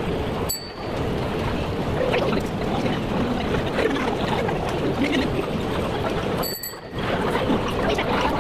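Busy shopping-mall concourse ambience: a steady rushing hubbub of crowd noise in a large echoing hall, dropping out briefly twice.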